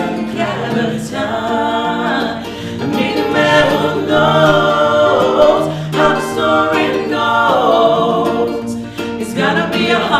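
Music: a vocal trio singing in close harmony, with long held chords and a steady low part beneath.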